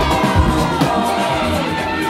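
Dance music from a DJ set playing loudly over a sound system, with a steady beat and a singing voice.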